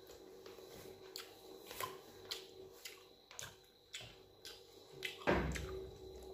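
Hand-eating sounds: fingers mashing and mixing dal and rice on a steel plate with wet squishing and sharp smacking clicks, along with open-mouthed chewing. A louder thump comes about five seconds in.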